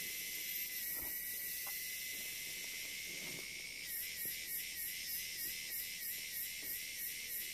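Steady high-pitched drone of forest insects. About four seconds in, a rhythmic pulsing insect call joins it at roughly two or three pulses a second. A few faint knocks sound underneath.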